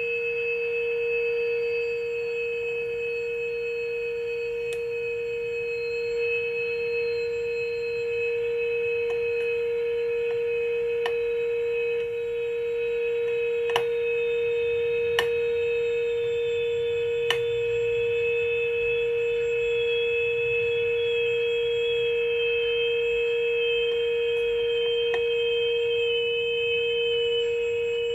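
A 1939 Fada Model 169 AA5 tube radio's speaker holds a steady test tone from a signal generator, fed in at about 456 kHz while the IF transformers are peaked for maximum. A faint higher whistle slowly falls in pitch underneath, and a few light clicks come through.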